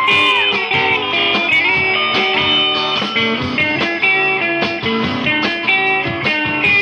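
Live band music: an instrumental passage led by a guitar playing quick melodic runs with bent notes over the band's backing.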